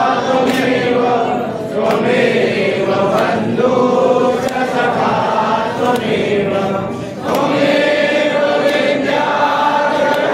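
A crowd of worshippers singing a devotional hymn together in long, held, chant-like phrases, pausing briefly twice. Sharp strikes sound roughly once a second behind the singing.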